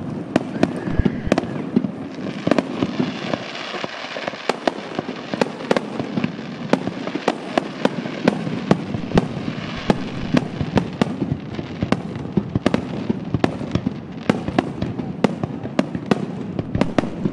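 Fireworks finale barrage: shells bursting in rapid succession, several sharp bangs a second, with a hissing crackle of glittering stars for several seconds in the middle.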